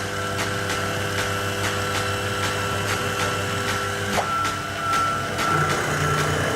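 CNC milling machine running, with a steady hum, a high whine and a regular light ticking.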